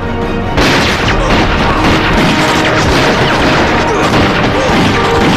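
Film gunfight: a sudden burst of rifle fire about half a second in, many shots and bangs in quick succession, over background music.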